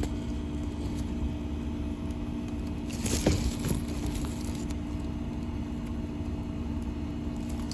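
Heat pump outdoor unit running in cooling mode: a steady hum from the compressor and condenser fan. A short knock about three seconds in.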